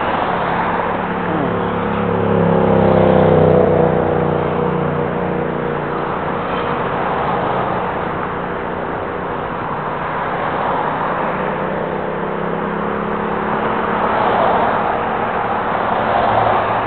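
A motor vehicle's engine hum from the road alongside, loudest about three seconds in and fading away over the next ten seconds. Under it is steady wind and riding noise on the microphone of camera sunglasses worn while cycling.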